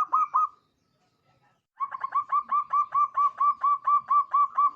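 Zebra dove (perkutut) calling: the last few notes of one phrase at the start, then after about a second's pause a quick, evenly spaced run of about fourteen short cooing notes, roughly five a second.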